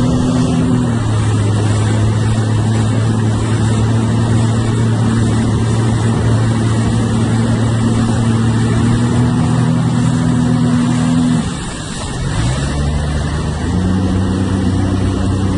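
Jet ski engine running at a steady throttle under a rush of water and wind noise. About eleven and a half seconds in the throttle is let off briefly, then the engine note climbs back up.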